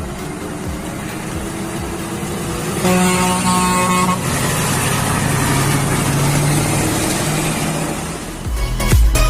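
Heavy truck running with road noise, and an air horn blowing once for about a second, about three seconds in. Electronic music with a heavy beat comes in near the end.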